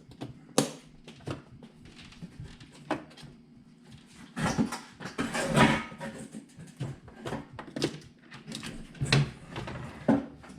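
Scattered small clicks and a stretch of rustling in a small room: hands handling a small plastic radio-controlled crawler truck and its parts.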